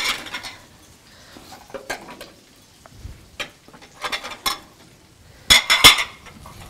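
Dishes and plates clinking and clattering as someone rummages through a kitchen cabinet, in scattered knocks with a louder cluster of clatters about five and a half seconds in.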